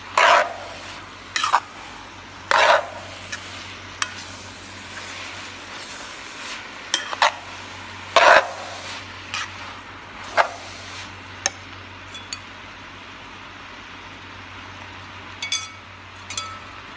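Yellow noodles and greens sizzling in a pan while metal tongs toss them, with short, sharp scrapes of the tongs against the pan every second or so in the first half. Near the end come a couple of light, ringing metallic clinks.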